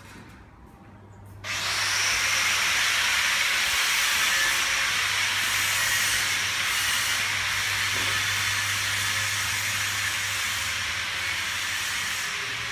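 A loud, steady hiss that starts abruptly about a second and a half in and carries on unchanged, over a faint low hum.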